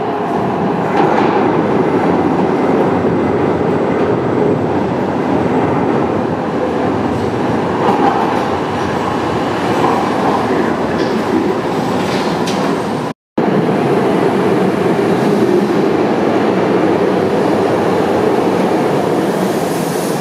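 Budapest Metro Line 1 yellow train running through a station: a steady wheel-on-rail running noise with a few clicks over the rail joints. It breaks off for a moment about two-thirds of the way through, then another train's running noise carries on.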